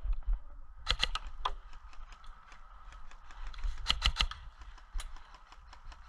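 Sharp clicking snaps in two quick clusters, about a second in and again about four seconds in, with scattered fainter ticks between: airsoft guns firing during play.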